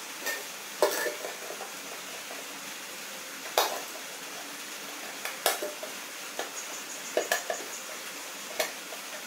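Scattered sharp clinks and taps of wires and small parts being handled against a metal tin can, a second or two apart, over a steady background hiss.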